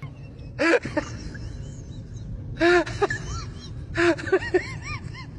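Steady low engine rumble of a motor-taxi. Over it come short calls that rise and fall in pitch: one about a second in, a cluster near three seconds and another around four seconds.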